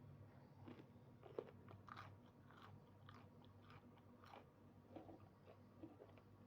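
Faint chewing close to the microphone: a person eating, with irregular soft crunches and clicks.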